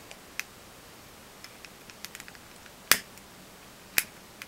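Lighter clicked twice, about three and four seconds in, to light the burner under a small brass model Stirling engine, with a few faint ticks before.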